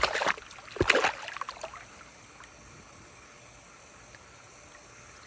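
Two sudden splashing thumps in water, the second about a second in and heavier, as the alligator lunges at the food; then a steady low hiss of water and outdoor background.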